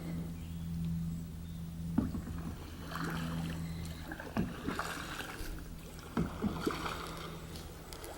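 Small boat on the water: scattered knocks against the hull and light water noise over a steady low hum.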